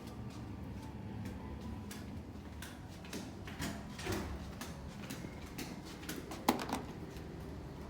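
Scattered small clicks and knocks of tableware, chopsticks and dishes being handled, with one sharper ringing clink about six and a half seconds in.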